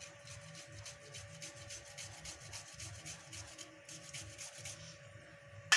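Fresh ginger being grated on a small plastic-framed hand grater with a metal grating face, in quick repeated rasping strokes. A sharp knock sounds near the end.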